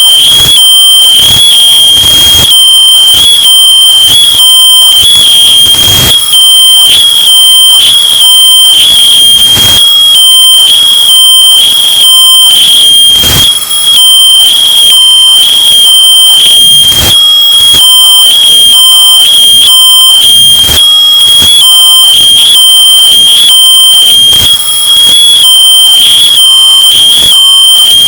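Smoke alarm sounding a continuous high-pitched tone, heavily bass-boosted and distorted to the point of clipping, at a flat, very loud level with a regular distorted pulse about twice a second.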